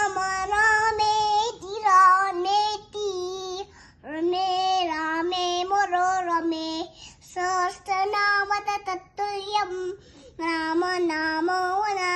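A toddler girl singing alone in a high voice, in four held phrases with short breaks for breath between them.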